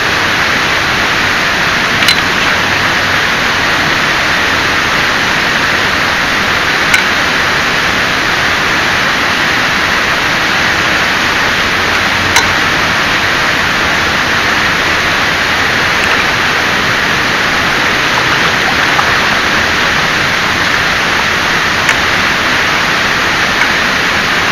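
A steady, even hiss of noise that does not change, with a few faint clicks scattered through it.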